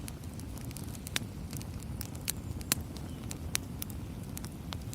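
Campfire burning, with a steady low rumble and irregular sharp crackles and pops of burning wood, a few louder pops among them.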